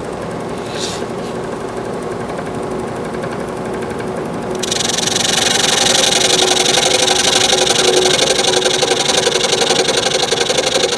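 Scroll saw running with its blade stroking up and down, then, about halfway through, the blade cutting into a cedar board: the sound turns louder and hissier with a fast rasping stroke.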